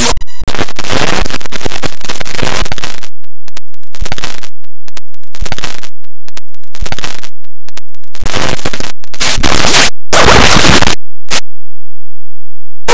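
Heavily distorted, clipped noise from an effects-processed cartoon soundtrack. It is chopped into stuttering clicks and bursts with short gaps, swells into a dense loud burst about nine seconds in, then cuts out abruptly near the end.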